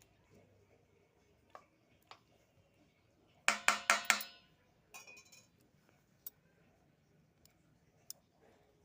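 Kitchen utensils clinking: a quick run of about five ringing metallic strikes, like a spoon knocking against a pot or dish, followed by a short scrape and a few light clicks.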